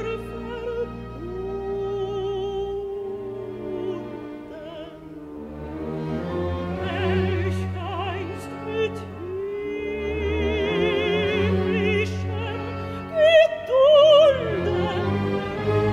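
A soprano sings a German art song (Lied) with wide vibrato over a symphony orchestra's sustained strings. About thirteen seconds in, the voice climbs to loud high notes.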